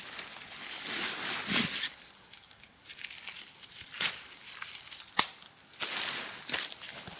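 Steady high-pitched chorus of insects in a forest at night, with some rustling and two sharp clicks in the middle.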